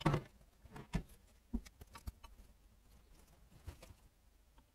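Metal clicks and knocks of a hand tool working on the casing of a Kawasaki KM90's 90cc engine as it is dismantled: a run of short, separate clicks, the loudest right at the start and about a second in.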